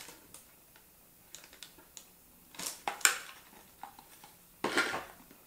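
Cosmetic products in plastic packaging handled and set down: a few scattered light clicks and taps, with a louder burst of handling noise near the end.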